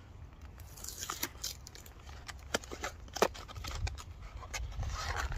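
Ration-pack packets being handled and opened by hand: plastic packaging rustling and crinkling, with a few sharp clicks, and a longer stretch of crinkling near the end.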